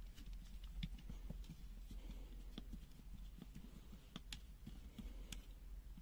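Faint, scattered clicks and light taps from a small screwdriver undoing the screws that hold a multimeter's circuit board, with fingers handling its plastic case.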